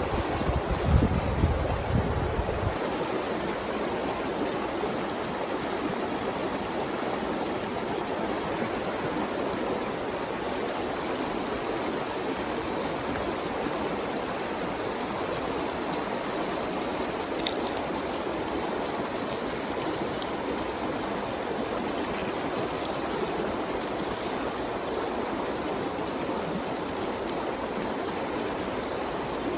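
River water running steadily. A low rumble of wind on the microphone sounds in the first couple of seconds.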